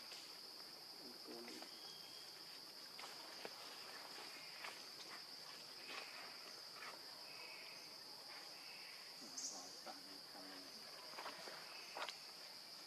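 A steady, high-pitched insect drone of crickets or cicadas, with scattered light rustles and clicks in dry leaf litter and a few faint short chirps.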